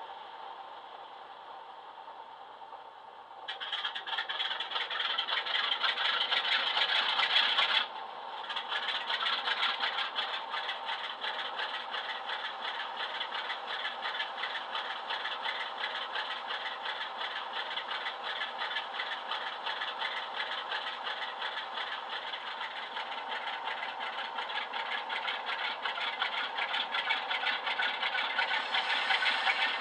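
Sound decoder in a model Class 47 diesel locomotive playing the Sulzer engine through a small double speaker, with the locomotive standing still: a quieter steady hum, then about three and a half seconds in the engine sound jumps up loud and rattling, typical of the start-up sequence firing. It drops back sharply about eight seconds in and settles to a steady idle that grows a little louder near the end.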